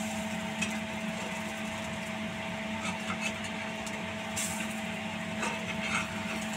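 A rice-flour ghavan cooking on a cast-iron tawa: faint sizzling, with a few light scrapes and taps of a steel spatula against the pan, over a steady mechanical hum.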